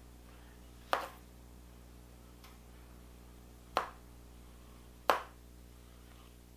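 Paddle hairbrush pulled through long, detangler-sprayed hair in three short brushing strokes, about a second in, near four seconds and just after five seconds.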